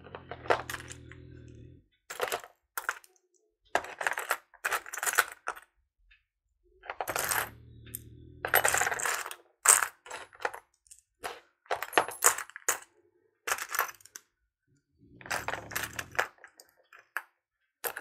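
Loose metal and glass costume earrings clinking and clattering against each other as they are sorted through by hand, in irregular clusters of light clicks with short pauses between.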